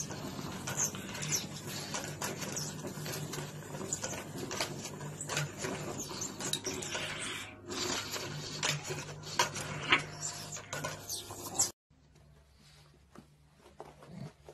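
Rapid, irregular clicking and rattling as a pug paws and claws at a toilet paper roll, spinning it on its metal wall holder, over a steady low hum. It cuts off suddenly near the end, leaving a much quieter room.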